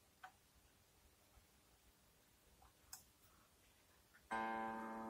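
Two faint clicks of fingers on the strings, then about four seconds in a string of a Squier Stratocaster electric guitar is plucked hard and rings on, a test pluck for fret buzz while the saddle height is being set.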